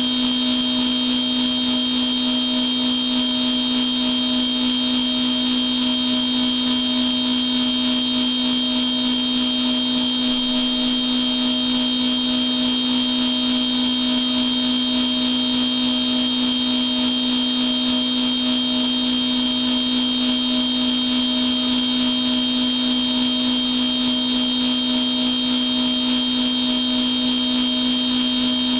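CNC machine tool running a program without coolant and without cutting metal: a steady mechanical whine with a low hum and a high tone, unchanging throughout.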